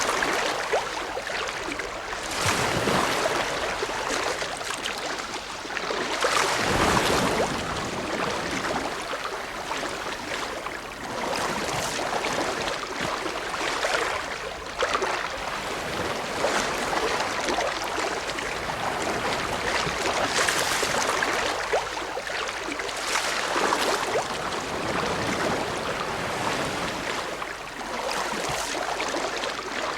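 Ocean waves breaking and washing in as a continuous rush of surf, swelling louder and easing off every few seconds.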